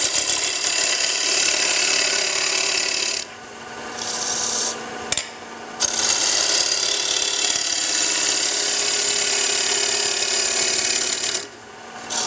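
Freshly sharpened bowl gouge cutting the inside of a spinning wooden bowl on a wood lathe: a steady shearing hiss as shavings peel off, over the lathe's steady hum. The cut stops for about two and a half seconds a few seconds in, with a couple of light clicks as the tool is set again, and stops briefly again near the end.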